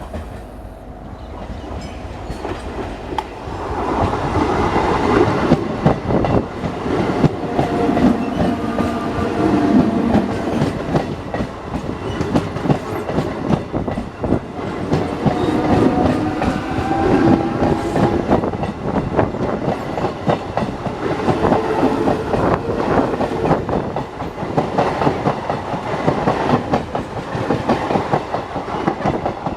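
EMU local train running past on a curve, its wheels clattering rapidly over the rail joints, with a wavering whine over the clatter. It gets louder about four seconds in and stays loud.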